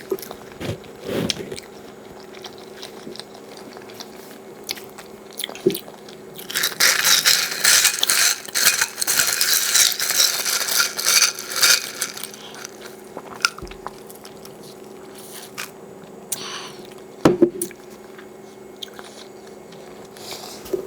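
Close-miked eating of tiger shrimp and lobster mac and cheese: scattered bites and chewing, with a dense stretch of loud crunching and crackling lasting several seconds in the middle.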